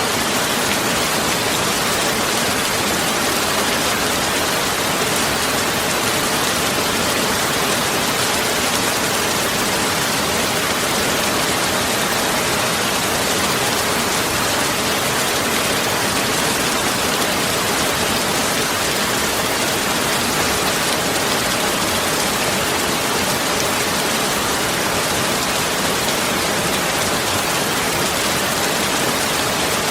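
A steady, even hiss like rain, with no pauses, rhythm or distinct events.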